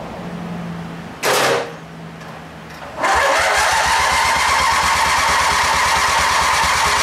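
Briggs & Stratton engine of a 1994 AYP 18.5 HP lawn tractor starting for the first time: a short loud burst about a second in, then about three seconds in the engine catches, quickly speeds up and runs steadily at high speed.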